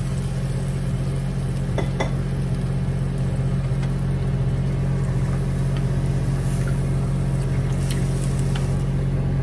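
Marinated chicken pieces and their marinade sizzling in a hot nonstick frying pan on a gas stove, over a steady low hum. A few light knocks come from a wooden spatula stirring the meat, about two seconds in and again near the end.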